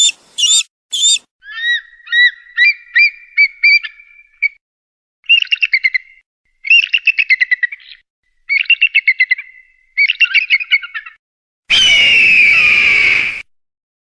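Eagle calls: several runs of high, rapid chirping and chattering whistles, then near the end one loud, harsh screech lasting about two seconds.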